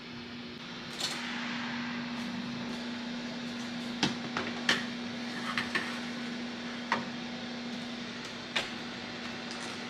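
Preheated countertop oven humming steadily while its door is opened, a metal baking tray is slid in with several sharp clicks and clatters, and the door clicks shut near the end.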